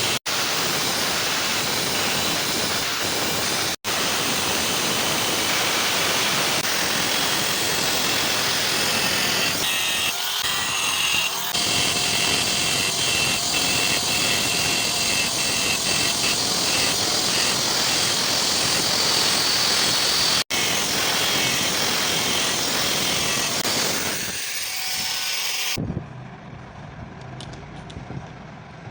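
Electric power tool running steadily under load, a dense, loud grinding noise, broken by a few abrupt edit cuts and turning quieter near the end.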